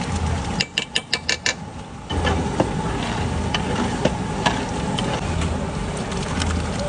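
A quick run of about seven sharp knocks about half a second in, then a few single clicks, over a steady low hum.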